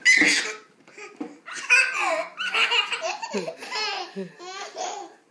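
Two babies laughing together in a string of short bursts, loudest right at the start.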